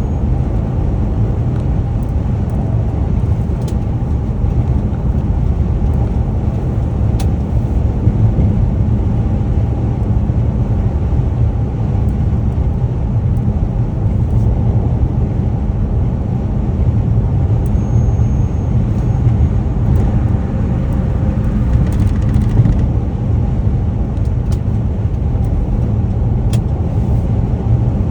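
Steady road and drivetrain rumble inside a moving 2011 Dodge Charger's cabin, with the air conditioning's strange noise, which the owner likens to a tea kettle boiling, coming from the middle-to-passenger side of the dash.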